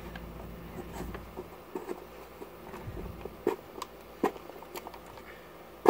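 Small hard-plastic clicks and taps as the parts of a toy dumpster launcher base are handled and pushed together, ending in a single loud snap near the end as a piece clicks into place.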